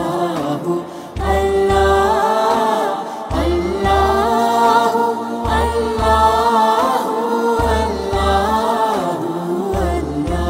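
Background music: a singing voice over a beat of deep bass hits that come in pairs about every two seconds.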